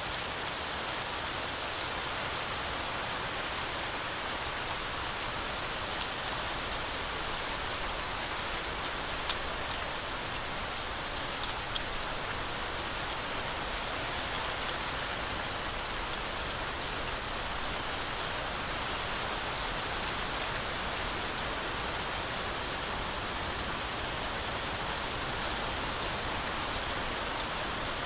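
Heavy rain falling steadily through forest trees, an even continuous hiss with a couple of sharper drop ticks about nine and twelve seconds in.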